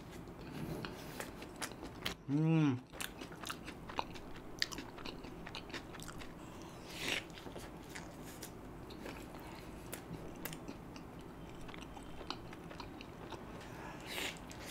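Close-miked biting and chewing of a soft paneer tikka stuffed garlic bread, with small wet mouth clicks and smacks throughout. About two and a half seconds in comes a short hum from the eater, rising then falling in pitch, the loudest sound.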